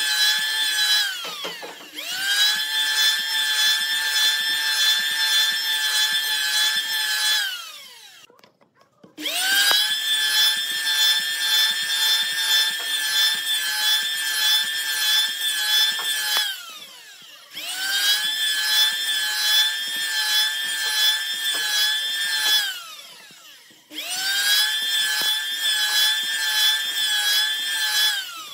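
Handheld electric planer cutting along a wooden strip, a high motor whine over the shaving noise. The motor winds down with a falling pitch four times, about a second in, near a third of the way, past halfway and near the end, and starts straight up again each time for the next pass.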